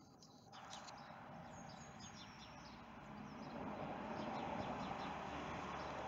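Outdoor ambience: small birds chirping repeatedly over a steady background hiss, which swells a little about halfway through.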